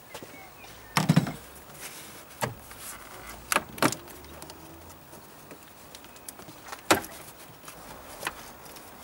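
Plastic air intake parts of a car engine being handled: about six separate clicks and knocks as the intake hose and round air filter housing are worked by hand, the sharpest about a second in and near seven seconds.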